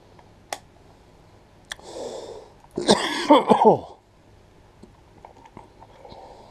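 A man's short cough-like vocal burst, about a second long with falling pitch, after a breathy sound; a couple of light clicks come earlier.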